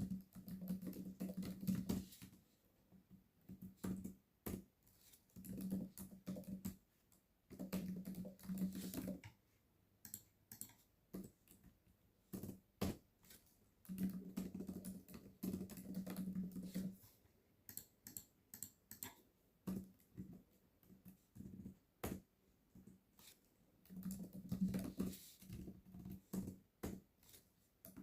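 Typing on a computer keyboard in bursts of rapid keystrokes lasting a second or three, with short pauses between them. Single sharp mouse clicks fall in the pauses, a clear one about 13 seconds in and another about 22 seconds in.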